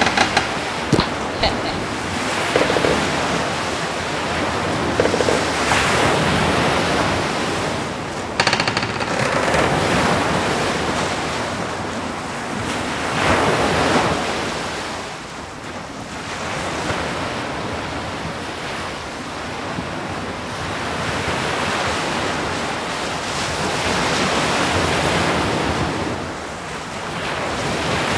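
Ocean surf: waves washing in, the rush swelling and falling every few seconds. A few short clicks come in the first two seconds and once about eight seconds in.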